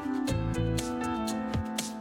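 Background music: held melodic notes over a regular beat, with some plucked guitar.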